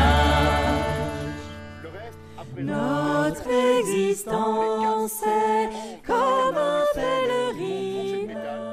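Medieval-style folk music: a wavering melody over a steady drone. It thins out about a second in and picks up again just before three seconds.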